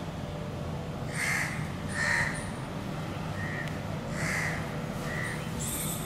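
Indian grey hornbills calling: a series of about six short, harsh squawks spaced roughly a second apart, over a steady low background rumble.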